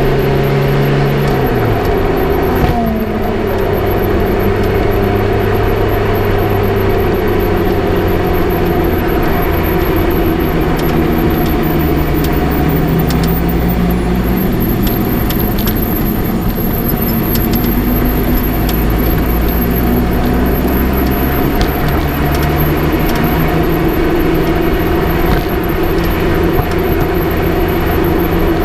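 Lotus Elise on the move, heard from a camera mounted on the front left suspension: dense road and tyre rumble with the engine running underneath, its pitch dropping about two seconds in and then rising and falling gently. A few faint light clicks come through now and then.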